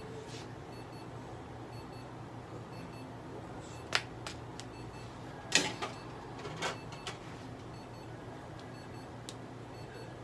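Steady low hum of equipment in a small room, with faint high pips now and then. A few sharp clicks and knocks come about four to seven seconds in, the loudest a little past halfway.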